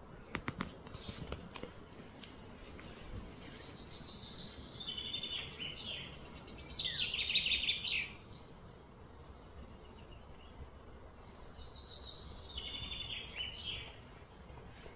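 A songbird singing in rapid, trilled phrases, loudest about six to eight seconds in, with a shorter phrase near the end, over steady outdoor background noise. A few sharp clicks come near the start.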